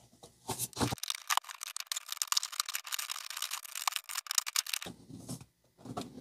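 Thin clear plastic blister packaging crackling and crinkling in a dense run of small clicks and rustles as it is pried open and pulled apart by hand.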